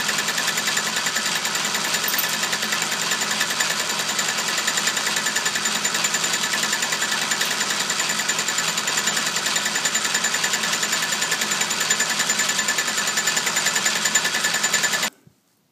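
Atlas lathe running and machining a steel fixture fed slowly by hand: a steady, loud mechanical drone with a fast, even chatter. It cuts off abruptly near the end.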